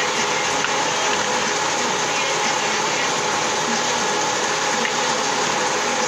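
Electric wet stone-cutting table saw running steadily, its circular blade spinning under a water spray as stone strips are fed through it.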